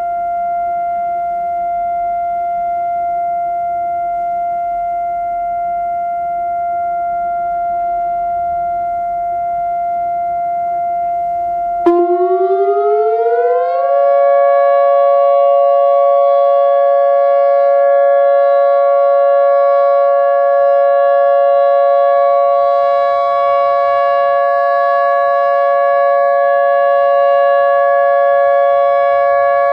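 Outdoor civil defense warning siren sounding a steady tone. About twelve seconds in, a second, lower tone glides up over two seconds and then holds alongside the first as a steady two-tone chord.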